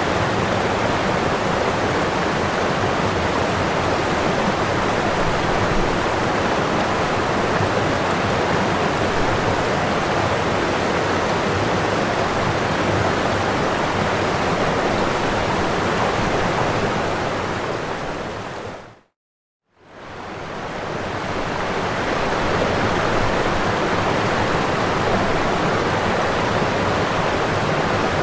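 Waterfall rushing steadily. About two-thirds of the way through it fades out to a moment of silence, then fades back in.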